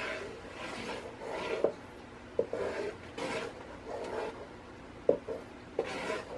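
Wooden spoon stirring thin tomato purée in a coated metal pot, scraping the bottom and sides in about nine even strokes, with a couple of sharper clicks as the spoon knocks the pot.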